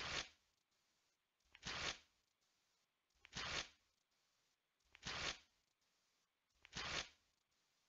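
Five short bursts of scraping, hissing noise, evenly spaced about one every 1.7 seconds, with near quiet between them.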